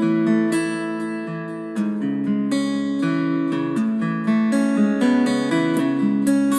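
The Redmi 4X's MIUI 11 ringtone playing: an acoustic-guitar tune of picked and strummed notes.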